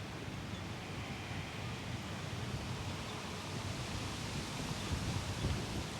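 Strong wind blowing on the microphone: a steady rushing noise with low buffeting gusts that swell about five seconds in.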